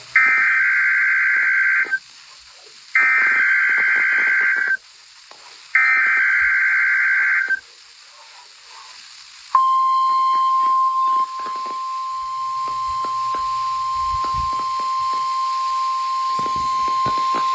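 NOAA Weather Radio required weekly test signal. Three bursts of SAME digital header data come first, each just under two seconds long with about a second between them. Then, about halfway through, the steady single-pitch 1050 Hz warning alarm tone starts and holds; it is louder for its first couple of seconds.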